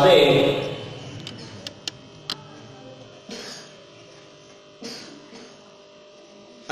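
A man's chanted recitation trails off at the start, then a pause of faint room tone with a low hum, a few small clicks, and two short hissing sounds like breaths at the microphone.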